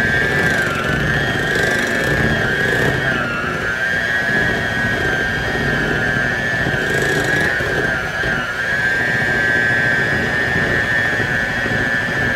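Hamilton Beach electric hand mixer running steadily with its beaters in pancake batter: a high motor whine whose pitch dips slightly a few times.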